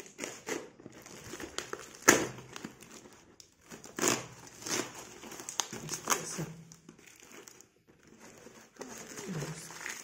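Plastic packing tape and cardboard crinkling and crackling as a small blade picks and cuts at the tape of a heavily taped parcel. It comes in irregular bursts, the sharpest about two seconds in.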